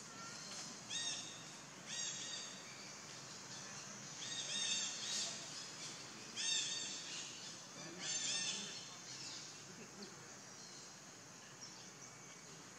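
A bird calling repeatedly in short, arching, high notes, about five clusters, over a steady background hiss of forest ambience.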